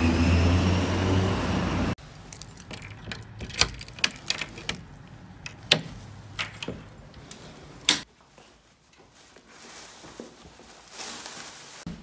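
A vehicle engine runs loudly with a rising whine for the first two seconds, then cuts off. Keys jangle and click against a front-door lock as the door is unlocked, a string of sharp clicks and knocks.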